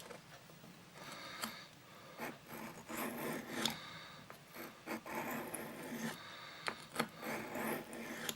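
Penknife blade being drawn across a small whetstone: a series of uneven scraping strokes of steel on stone.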